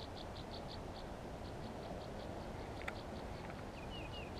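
Pond-bank ambience: a steady outdoor hiss with a run of quick, high-pitched ticks about five a second that fade out after about three and a half seconds. A single sharp click comes about three seconds in, and a few short, falling bird chirps come near the end.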